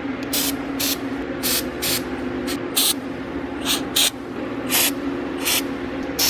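Aerosol can of WD-40 Specialist Long-Term Corrosion Inhibitor sprayed in about eleven short hissing bursts onto battery terminals, over a steady low hum.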